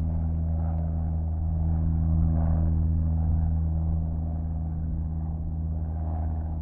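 Steady low engine drone holding one pitch, with no rise or fall and no speech.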